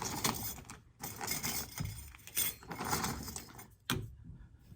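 Small metal button parts, such as shells and pin backs, clinking and rattling as they are handled to make a button, with a sharp click just before the end.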